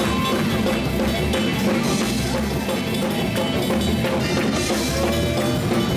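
Live church band music driven by a drum kit, with bass drum and snare hits.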